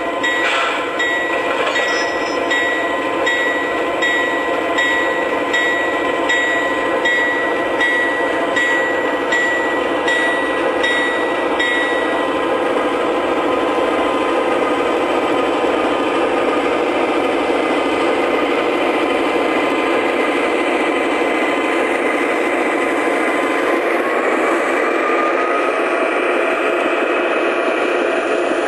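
O-scale model diesel locomotive sound systems playing steady diesel engine sounds as a model train runs, with a ringing tone repeating about twice a second for the first twelve seconds and a slowly rising tone near the end.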